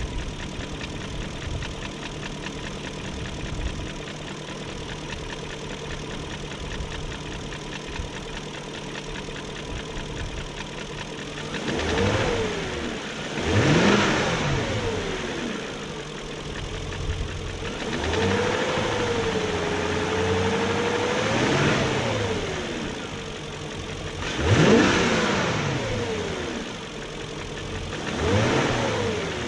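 2001 BMW 740i's 4.4-litre M62 V8 idling steadily, freshly fitted with new timing chain guides and tensioner. About ten seconds in it is revved five times, the middle rev held for a few seconds before dropping back to idle. The owner still hears a tick he cannot trace, which he suspects could come from the VANOS unit.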